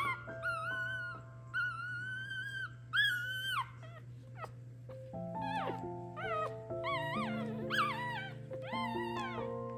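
Newborn puppies squeaking and whining: a run of high, wavering cries in the first few seconds, then from about five seconds in a quicker series of short squeaks that rise and drop sharply. Soft background music of held notes plays underneath.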